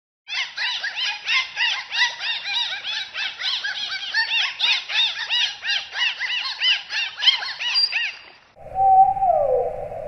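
Dolphin whistles and chirps: a fast run of short rising-and-falling whistles, about four or five a second, for about eight seconds. Near the end it breaks off and gives way to a lower, steady whistle that slides down in pitch every second and a half or so, over a low hiss.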